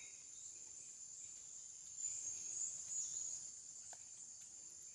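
Steady high-pitched insect chorus, swelling a little in the middle.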